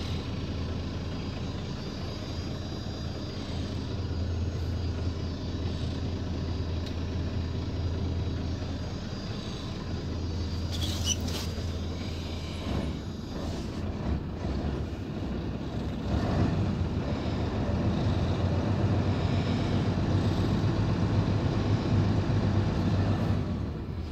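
Diesel engine of a 2001 Mercedes Atlas coach idling steadily, heard from the back seats inside the cabin. There is a brief high-pitched sound about eleven seconds in, and the engine gets somewhat louder from about sixteen seconds on.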